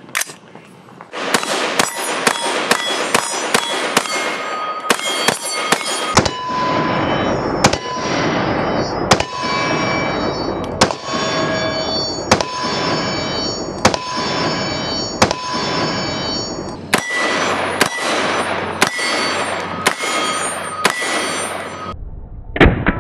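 Rapid semi-automatic rifle fire with steel-cased ammunition striking steel targets: each shot is followed by a clang and the plate ringing at its own pitch. The shots start about a second in, come quickly at first, slow in the middle, and speed up again near the end.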